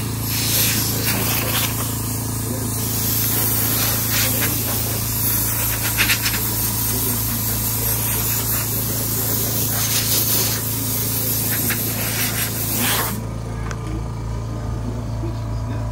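Steady hissing rush of air over a low, even motor hum. The hiss flares briefly a few times and cuts off abruptly about thirteen seconds in, while the hum carries on.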